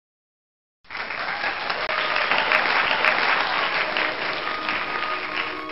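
Applause from a large crowd, starting abruptly about a second in and easing off near the end.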